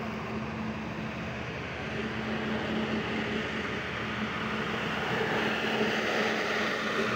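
Diesel engine of a Pakistan Railways passenger train running steadily with a constant low hum, growing a little louder and noisier about five seconds in.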